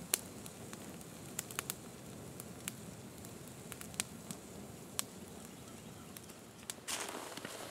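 Small wood campfire of sticks and twigs burning with tall flames, crackling with sharp irregular pops over a low steady rush. A brief louder rush of noise comes near the end.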